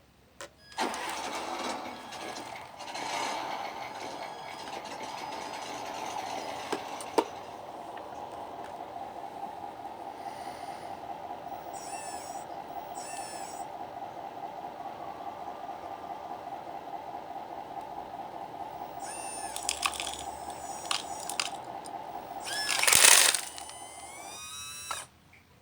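The electric hydraulic pump of an RC hydraulic model running steadily, a hum with a fast ripple. Short high squeaks sound over it several times, the loudest near the end, and the pump cuts off suddenly shortly before the end.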